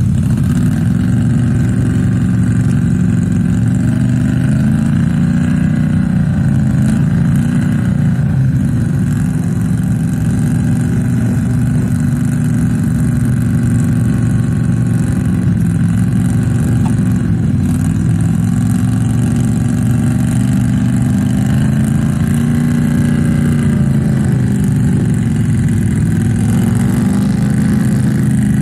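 Several ATV engines running at once, idling with repeated rises and falls in revs as the quads work in deep mud.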